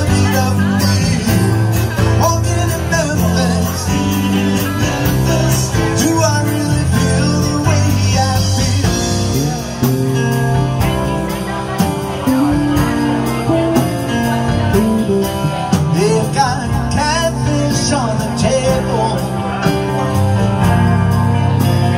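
Live rock band playing a stretch without words, with electric guitars, bass, keyboard and a steady drum beat.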